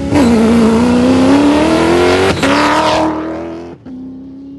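Off-road race car engine under hard acceleration, its pitch rising, with an upshift about two and a half seconds in. It then fades away.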